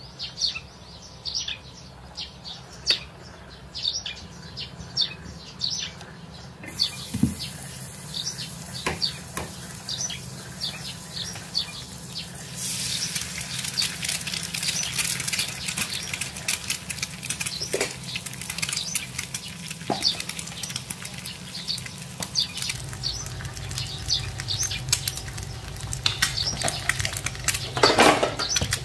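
An egg frying in butter in a pan: a steady sizzle and crackle that starts about halfway through, with a brief louder clatter near the end. Before the sizzle, short bird chirps repeat.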